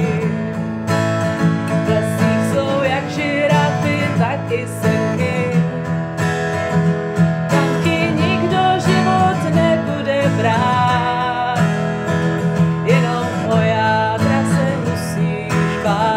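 Steel-string acoustic guitar strummed in steady chords while a woman sings a melody over it.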